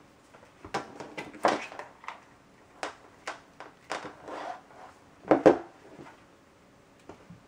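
Hands handling a laptop's power adapter and its cord: a string of small plastic clicks, knocks and cable rustles. The loudest knock comes about five and a half seconds in, as the adapter brick is set down on the desk.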